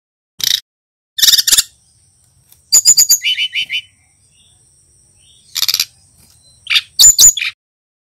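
Brown-chested jungle flycatcher (sikatan rimba dada coklat), a male learning its song, singing in five short bursts of quick, high chirps and trills with pauses between them.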